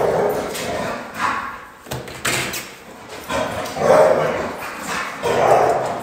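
A dog barking repeatedly, about five loud barks a second or so apart.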